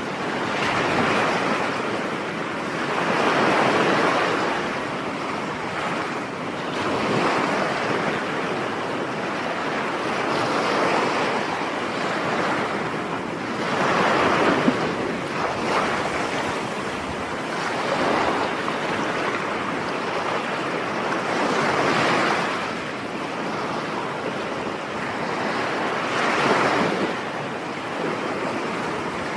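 Sea waves breaking and washing up the shore, swelling and falling back every three to four seconds in a continuous surf wash.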